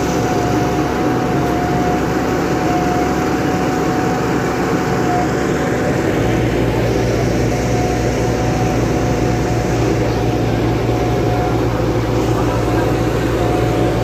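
Asphalt paver's diesel engine running steadily as it lays asphalt, with a thin steady whine above it. The low engine note shifts about six seconds in.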